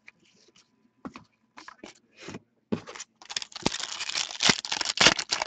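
Hockey card packaging being handled and torn open: a few short rustles and scrapes, then from about three seconds in a dense crinkling and tearing of the wrapper.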